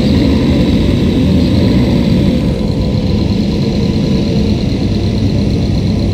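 Subaru boxer engine running near idle after a dyno pull, heard through det cans (a microphone in the detonation-listening earpiece), so it comes across as a dense, rough mechanical rumble from the engine block. A faint steady high whine joins it about two and a half seconds in.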